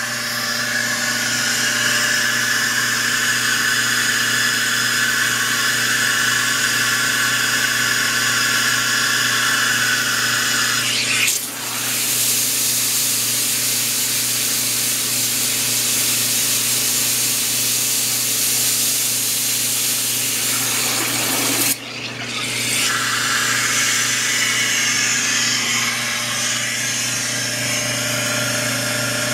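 Aquatec 220 psi diaphragm pump of a portable carpet-cleaning heater unit running steadily with a hum, while a number 2 jet sprays hot water continuously at about 250 psi with a steady hiss. From about eleven to twenty-two seconds in the hiss of the spray hitting a bucket is louder and fuller.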